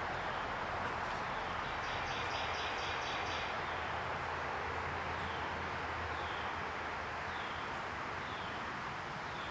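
Small birds chirping over steady background noise: a quick trill of about eight notes about two seconds in, then four short falling chirps spaced about a second apart.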